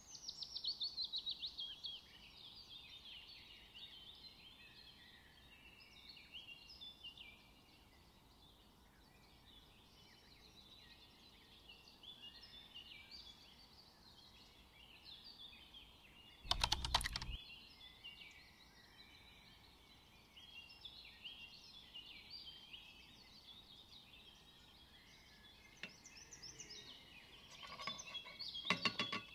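Small birds chirping continuously, many short calls overlapping. A brief loud clatter comes about halfway through, and a few clicks near the end.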